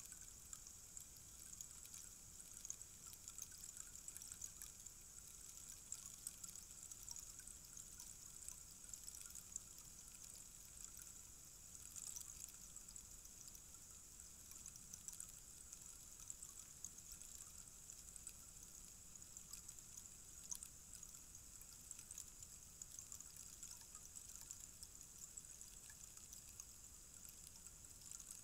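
Rainstick with its beads trickling down inside the tube, a faint, steady patter of many tiny clicks like light rain that keeps going without a break.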